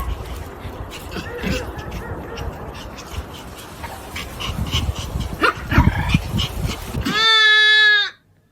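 A dog whimpering and yipping with short high calls over a noisy, clattering background. Near the end it cuts to one steady, about one-second bleat.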